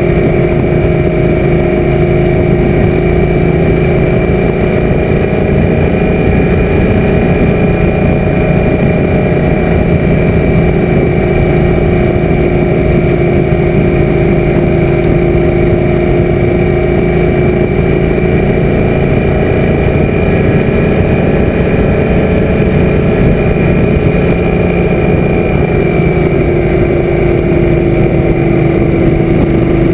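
Suzuki M800 V-twin motorcycle engine running steadily at cruising speed, heard from the rider's own bike, with wind rushing over the camera.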